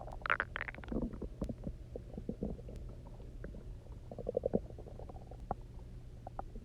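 Empty human stomach gurgling and rumbling, the hunger noises of a stomach left unfed for a day and filled with water. A loud squeaky gurgle opens it, small pops and bubbles follow, and another bubbly gurgle comes about four seconds in.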